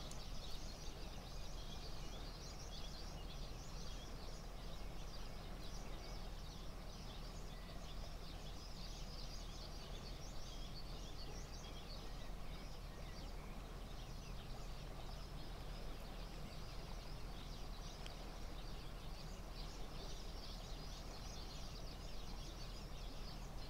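Steady outdoor background hiss with many small birds chirping throughout.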